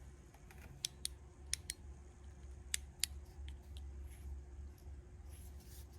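Sharp metallic clicks of hand tools and small parts on a diesel injection pump being worked on, about six in the first three seconds and fainter ones after, over a low steady hum.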